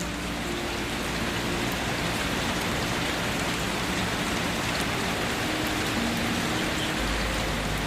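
Steady rain falling on a surface: a dense, even hiss of many drops that keeps a constant level.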